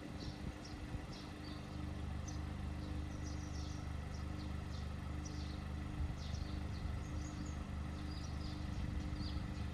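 A car's engine running with a steady low hum, while scattered short high chirps come and go over it.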